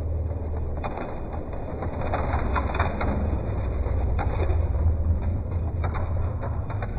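Hot Wheels die-cast cars rolling down an orange plastic track: a steady low rumble with scattered clicks.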